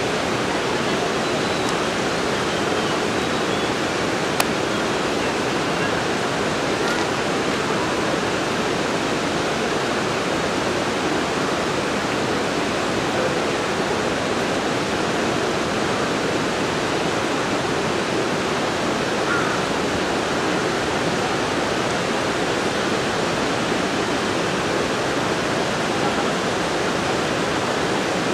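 Steady, even rushing noise without breaks or changes in level.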